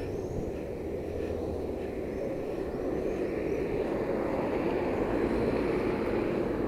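Steady outdoor street noise picked up by a moving camera's microphone, a low rumble that grows slightly louder toward the end, with a few faint high chirps in the first half.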